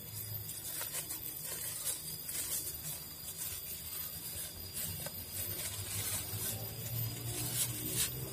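Small clear plastic bag crinkling and rustling in the hands while white powder is shaken from it into a pot of water, many small irregular crackles over a low steady hum.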